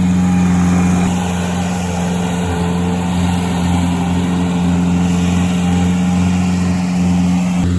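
Skid-steer loader's engine running steadily with a deep, even hum, easing off slightly about a second in.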